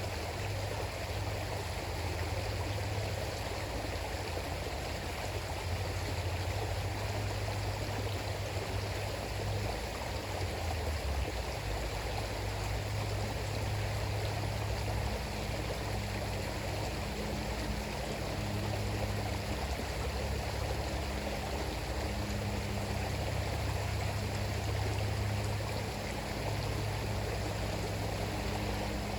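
River water flowing in a steady, even rush, with a low rumble underneath that does not let up.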